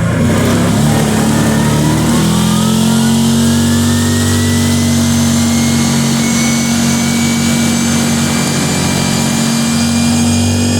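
ATV engine accelerating, its pitch climbing over the first two or three seconds, then running steady at speed.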